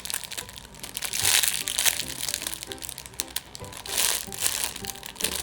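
A homemade squishy squeezed in the hands, crinkling and crackling in a few bursts, over light background music with short stepping notes.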